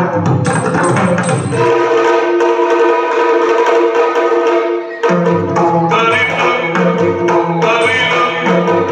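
Yakshagana music: a sung melody over a steady drone, with hand-played barrel-drum (maddale) strokes. The drums stop about two seconds in, leaving a long held note and the drone, then come back in about five seconds in under a moving vocal line.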